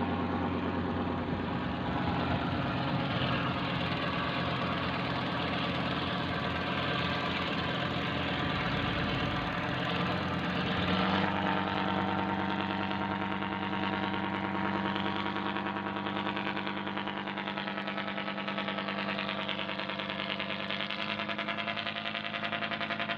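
Simulated diesel ship-engine sound for an RC boat, running steadily like a heavy engine at low revs, with the note shifting slightly about eleven seconds in.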